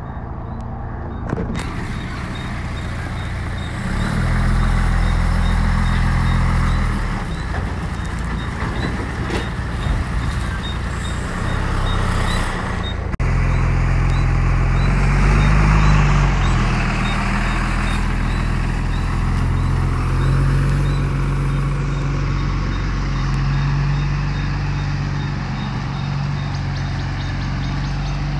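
Tata tanker truck's diesel engine running as the truck is manoeuvred into a new position, its pitch rising and falling. A regular high reversing beep repeats for about the first half, then stops.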